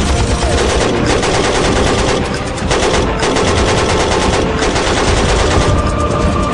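Continuous rapid machine-gun and rifle fire, a dense battle sound effect with shots running together without a break.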